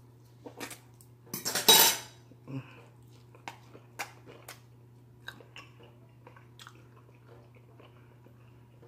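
Eating with a fork: a fork clicking against a plate or pan while crunchy baked shrimp is bitten and chewed. There is a louder crackling burst about one and a half seconds in, then scattered sharp clicks, over a steady low hum.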